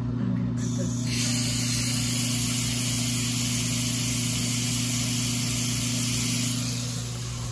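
A steady hiss comes in about a second in and stops shortly before the end, over a constant low hum.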